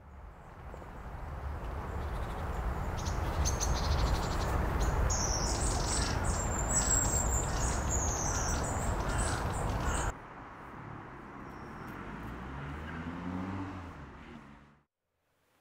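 Outdoor nature ambience: a steady rushing noise with small birds chirping rapidly and high-pitched for several seconds. About ten seconds in it cuts abruptly to a quieter bed with a faint low rising tone, then fades out.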